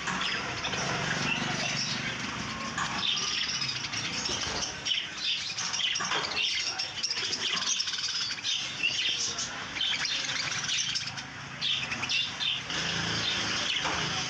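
A flock of budgerigars chattering, with many short chirps and warbles overlapping without a break.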